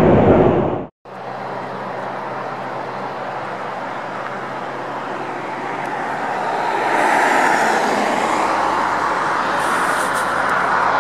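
Highway traffic noise: a steady wash of tyre and engine noise with a faint low hum, swelling as a vehicle passes about seven seconds in.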